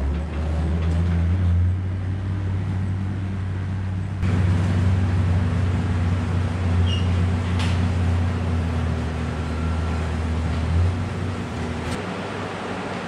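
Ford inline-six diesel engine of a Thiokol Packmaster snowcat running with a deep, steady drone as the machine is driven onto its new belt tracks. It gets louder about four seconds in and eases back near the end.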